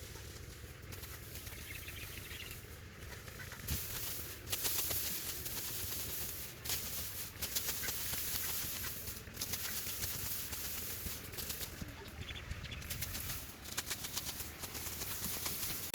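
Dry rice stalks rustling and crackling in a field, with wind buffeting the microphone as a steady low rumble.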